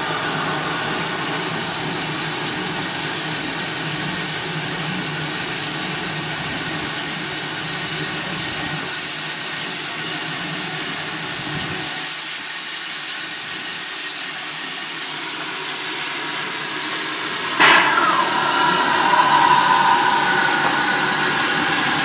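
Shay geared steam locomotive hissing steadily as steam leaks around its cylinders and running gear. A sudden, louder rush of steam starts about four seconds before the end and carries on.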